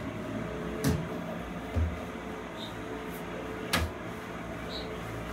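Two sharp knocks and one soft, low thump, spread out over a steady low hum.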